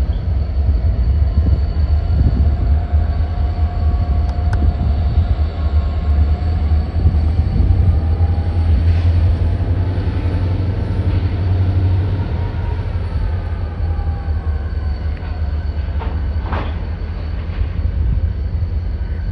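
Two diesel-electric yard locomotives shoving a cut of freight cars: a steady, low engine rumble that eases a little after about 13 seconds, with a few short knocks near the end.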